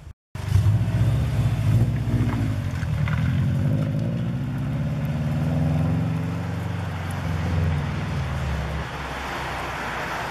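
A car's engine rumbling loudly as it pulls away and drives through a parking lot, loudest at the start and easing off slightly near the end.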